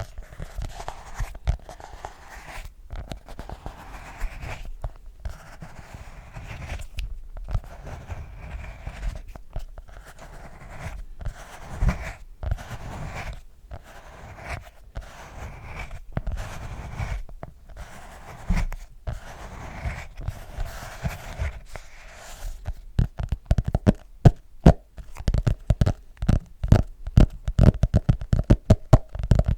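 Close-miked ASMR sounds made by hand on small objects: a long run of scratchy scraping strokes with short pauses between them, then quick, dense tapping in the last quarter.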